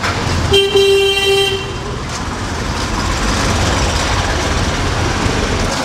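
A vehicle horn honks once, a single steady-pitched note lasting a little over a second about half a second in. Under it and after it runs a steady din of street traffic.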